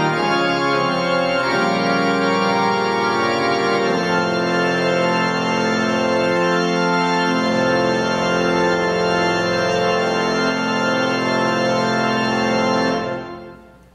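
Organ playing slow, sustained chords that change every few seconds, fading out near the end.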